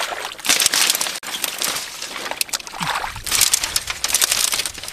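Legs wading through shallow muddy water, splashing and sloshing in several bursts, the longest about half a second in and more from about three seconds in.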